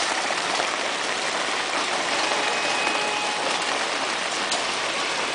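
Steady hiss of rain falling, with a single short tick about four and a half seconds in.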